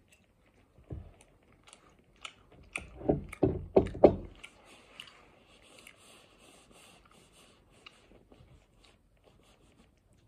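Close-up chewing of tortellini, with a run of loud, sharp wet bites and mouth sounds about three to four seconds in and a smaller one about a second in. Fainter scraping and rustling follow.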